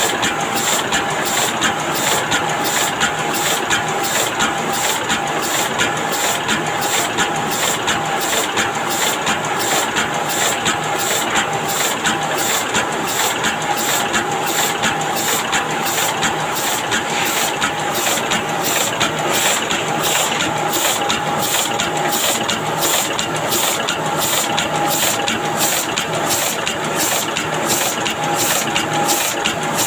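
Heidelberg GTO two-colour sheetfed offset printing press running at speed. Its rollers and sheet-transfer grippers make a steady mechanical clatter with a fast, even beat as sheets go through, over a steady hum.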